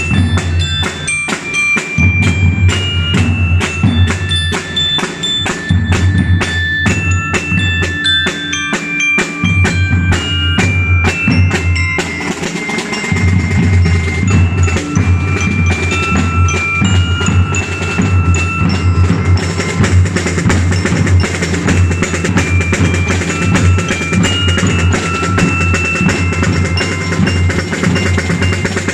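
Drum and lyre band playing: metal-bar bell lyres ring out a melody of high notes over a steady beat of bass drums and snare drums.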